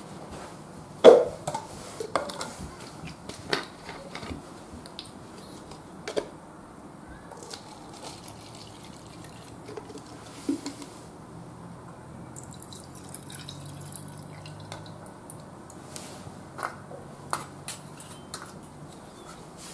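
Scattered light clicks and taps, the loudest about a second in, over a faint low steady hum in the middle stretch.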